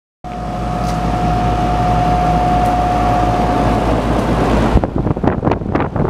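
Amana Distinctions packaged heat pump running with a steady hum and a high whine. About three-quarters of the way through there is a thump, then gusty buffeting as the condenser fan's air blows across the microphone.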